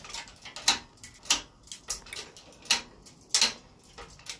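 Hydraulic bottle jack of a Harbor Freight 12-ton shop press being pumped by hand, a sharp metallic click about every two-thirds of a second with each stroke of the handle as the blade is forced into an electric motor stator.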